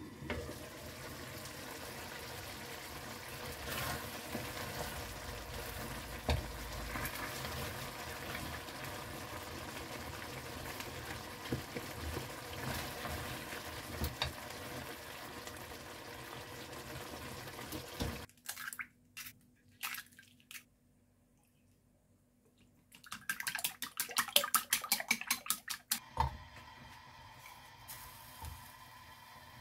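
Tomato-and-beef Hayashi sauce bubbling steadily as it simmers, with occasional knocks of a wooden spatula stirring it. After a quiet gap, a quick run of sharp clicks, the loudest part, then a faint steady hiss of butter heating in a nonstick frying pan.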